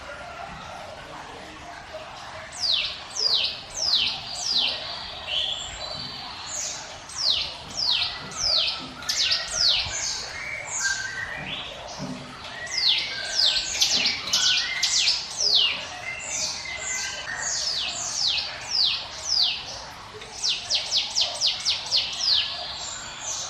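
Cucak gunung (orange-spotted bulbul) singing: runs of sharp, steeply falling whistled notes, speeding up into a fast run near the end, over softer, lower chirps.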